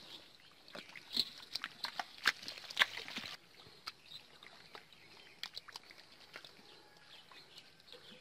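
Wet squelching and splashing of hands and a metal bowl scooping thin mud and water. A quick run of sharp slaps comes in the first three seconds, and it is quieter after.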